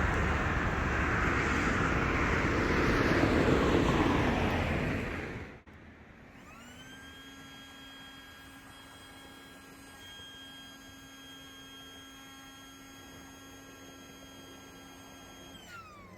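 A loud, steady rushing noise cuts off about five and a half seconds in. A faint whir of a small motor follows, rising in pitch as it spins up, running steadily, and falling in pitch as it runs down near the end.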